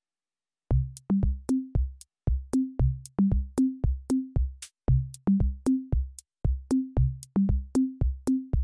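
Background music: an electronic drum-machine beat of short, sharp hits with short low notes stepping up and down in pitch, starting just under a second in.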